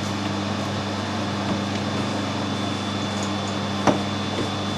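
Metal lathe running at a steady speed, its motor and gearing giving an even hum with a thin high whine. A single sharp click comes about four seconds in.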